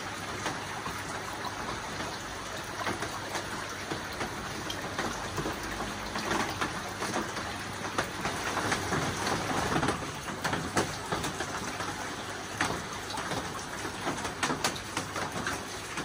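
Water dripping and trickling off a rock ledge into a shallow pond below: a dense, uneven run of small splashes over a steady wash of falling water.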